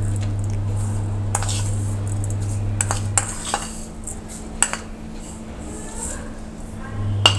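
A steel spoon clinking against a bowl and a steel kadhai as sugar is spooned into milk: a few separate sharp clinks. A steady low hum drops out about midway and returns near the end.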